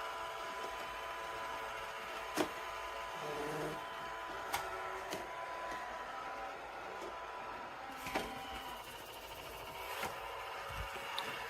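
iRobot Roomba j7+ robot vacuum running, a steady motor and brush whine, with a few sharp knocks as it bumps into things.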